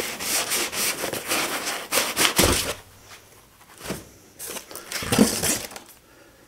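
Foam packing insert and cardboard box being handled while unpacking: rustling and rubbing as the foam is pulled out, with a dull knock about two and a half seconds in. A louder spell of scraping and handling noise comes about five seconds in as the metal rotary unit is lifted out of the box.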